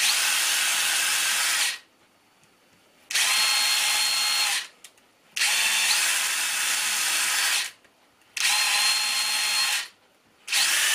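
DeWalt cordless drill/driver with a small 1.5 mm bit drilling test holes into a dry-lined wall, in repeated bursts of one to two seconds with short pauses; several bursts open with the motor's whine rising as it spins up. The holes probe for where the stud behind the wall starts.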